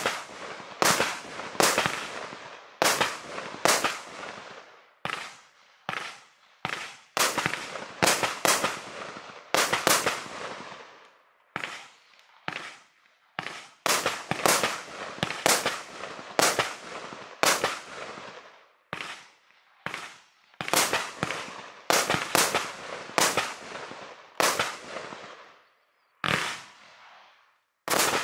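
HF2243 Vortex 3 multi-shot firework firing a rapid series of aerial shots, roughly one or two sharp bangs a second, each trailing off over about a second. There is a brief lull near the end before one more shot.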